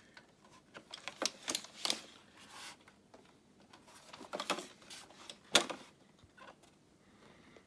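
Handling noises as the robot vacuum and its packaging are picked up and turned over: a scattered series of clicks and rustles, the loudest a sharp click about five and a half seconds in.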